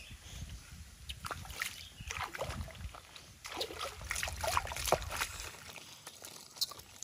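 Stream water sloshing, trickling and splashing as a woven bamboo basket of wild mushrooms is dipped and swished to wash them. The splashes are irregular, busiest past the middle, then quieter with a last splash near the end.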